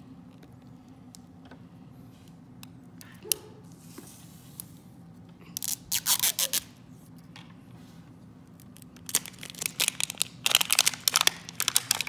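The wrapper layers of an L.O.L. Surprise ball being peeled and torn off by hand, crackling and tearing in two spells: a short one about six seconds in and a longer, busier one from about nine seconds on.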